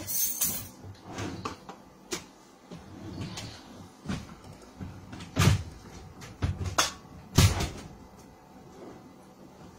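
A string of irregular knocks and bumps of things being handled, like a cupboard door or drawer and objects being moved. The loudest two come about five and a half and seven and a half seconds in.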